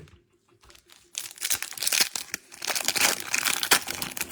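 Foil wrapper of a Topps Cosmic Chrome football card pack being torn open and crinkled by hand, starting about a second in with a dense, crackling rustle.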